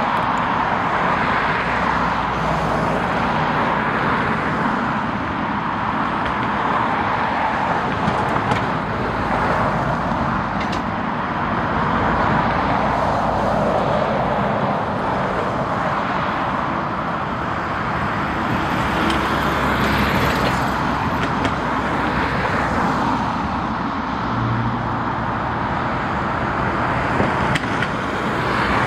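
Steady road traffic noise, vehicles passing one after another in slow swells every few seconds.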